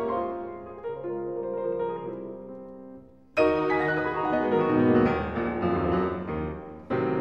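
Background piano music: sustained notes ring and fade, with a louder chord entering about three and a half seconds in and again near the end.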